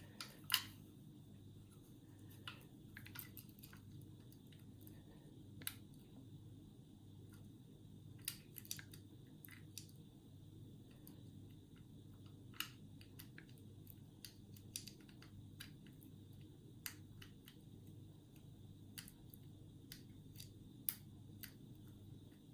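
Faint, irregular small clicks and ticks of homemade picking tools working the levers inside a 5-lever curtain-sided mortice lock, over a low steady hum.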